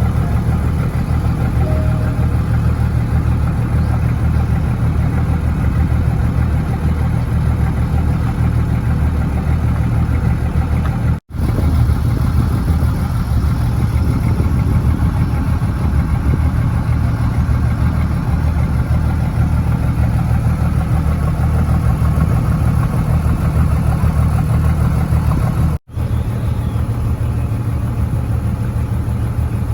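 Fishing boat engine running steadily, a deep even hum. The sound cuts out for an instant twice, once about a third of the way in and once near the end.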